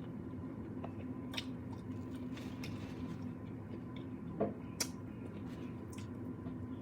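Someone eating jerk ribs: soft chewing and a few sharp mouth clicks and smacks, the loudest just before halfway and again a little past the middle, over a steady low hum.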